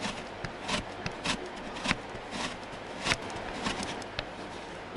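Cheese being grated by hand on a metal box grater: a series of scraping strokes, a little under two a second.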